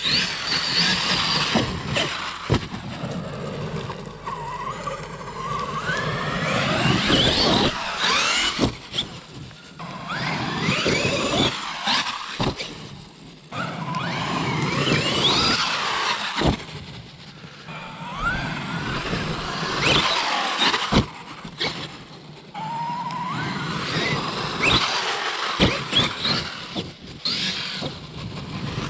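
A Traxxas RC monster truck's electric motor whines up and down in pitch as it repeatedly accelerates and lets off. Tyre noise on grass and gravel runs under it, with several sharp knocks.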